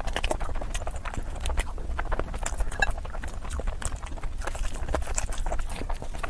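A person eating close to the microphone: chewing and mouth sounds as many quick, irregular clicks and smacks, several a second, over a low rumble.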